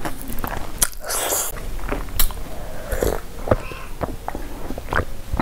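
Close-miked eating sounds: wet chewing and sharp mouth clicks, then sips and swallows of water from a glass near the end.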